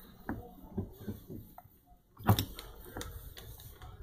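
Light clicks and taps of metal parts being handled as a pump's mechanical seal is pushed onto its shaft sleeve, with one louder knock a little past halfway.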